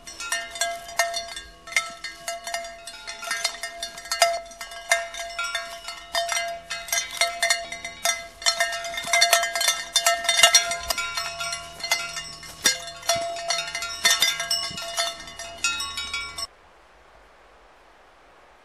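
Bells on grazing pack horses clanking irregularly as the horses move, each clank ringing on at a steady pitch. The ringing stops suddenly near the end, leaving a faint hiss.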